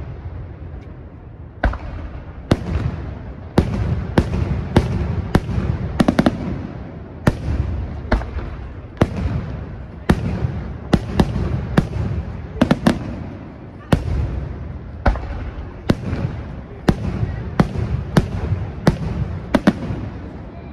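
Aerial firework shells from a Senatore Fireworks display bursting in a steady barrage: sharp bangs about two a second, each trailed by a low rolling rumble, after a brief lull at the start.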